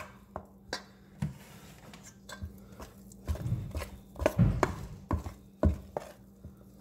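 Metal spoon stirring and scraping thick icing in a stainless steel mixing bowl, with irregular clinks and knocks of the spoon against the bowl. There are heavier thuds about three to five seconds in.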